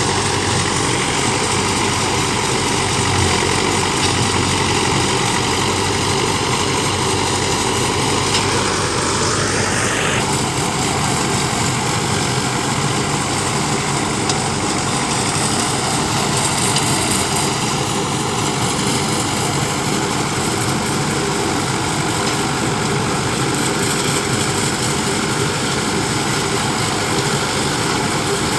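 Combine harvester running steadily at working speed, its engine and threshing machinery making a constant loud din, with a brief rising whine about nine seconds in.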